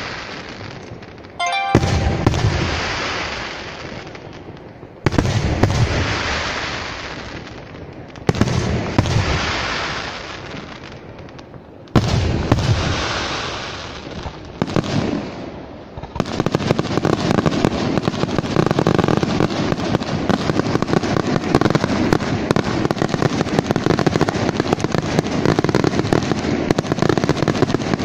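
Aerial fireworks shells bursting: five heavy booms a few seconds apart, each trailing off slowly, then, from a little past halfway, a dense continuous barrage of rapid crackling bangs.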